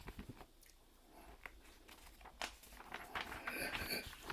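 Paper pages of an instruction manual rustling as they are handled and turned, with small scattered clicks, busier and louder in the last second and a half.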